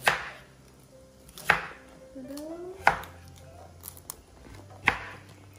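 Cleaver chopping raw potato on a wooden cutting board: four sharp chops about a second and a half apart.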